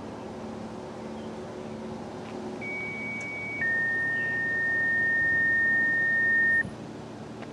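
Two-tone sequential radio paging tones, the kind that set off a town fire siren: a steady higher tone for about a second, then a slightly lower tone held for about three seconds that cuts off sharply. A low steady hum runs underneath.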